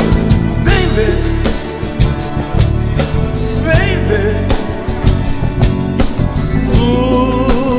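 Band playing the instrumental passage of a romantic ballad: a melody over a steady beat, with a long held note with vibrato coming in near the end.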